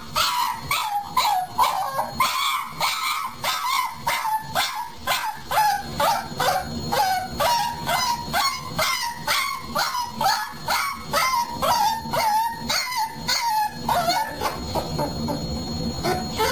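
A puppy yipping over and over in short, high calls, about two or three a second.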